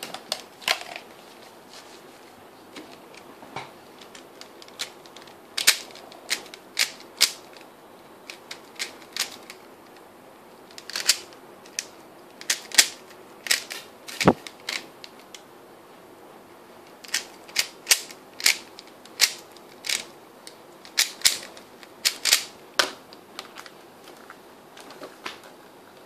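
A 3x3 speedcube's layers being turned by hand during a solve: irregular sharp clicks and clacks in quick clusters, with short pauses between the clusters.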